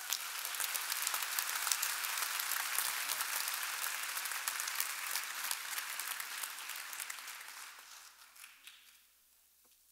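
An audience applauding in a large auditorium: many people clapping together, dying away over the last couple of seconds.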